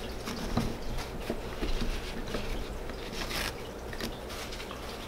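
A paper towel rustling and rubbing over a spinning reel's body, wiping reel cleaner and old grease off where the spool sits. It is a string of soft scrapes and crinkles, with a brighter, harder scrub about three and a half seconds in.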